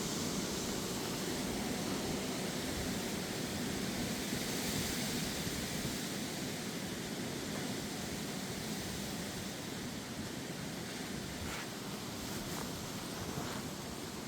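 Strong gusty wind with rain, a steady rushing noise that swells a little about four to five seconds in.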